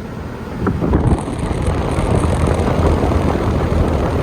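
Large barn wall exhaust fan running: a steady low hum under a loud rush of moving air buffeting the microphone, growing louder about a second in.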